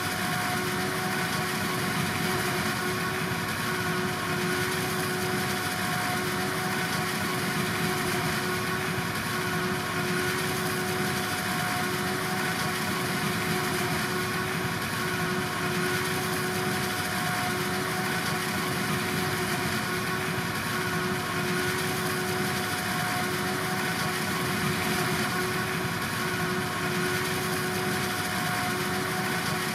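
Farm machinery at a corn-silage harvest running at a steady, unchanging speed, with a constant whine over the engine noise.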